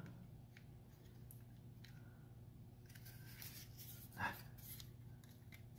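Near silence with faint handling of thin sheet-metal pieces, and one brief light clink about four seconds in.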